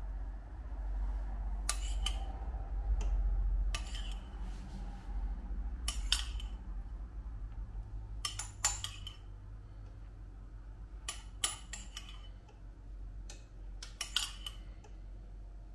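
Kitchen utensils and dishes clinking and knocking at irregular intervals, some strokes coming in quick pairs or threes, over a low steady hum.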